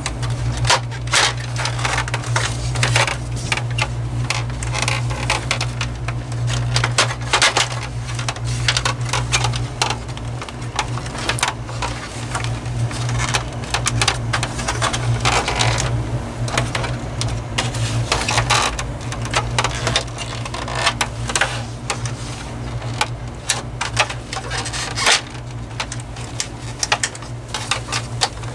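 Plastic housing of a Honeywell HW-690 window fan being handled and pried apart by hand: dense, irregular clicks, creaks and rattles of the plastic panels and snap tabs, over a steady low hum.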